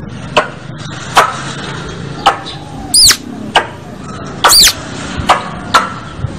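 Squirrel calling, as a lure sound: a loud series of about eight sharp, short chips spaced roughly half a second to a second apart, two of them longer, high and arching, about three and four and a half seconds in.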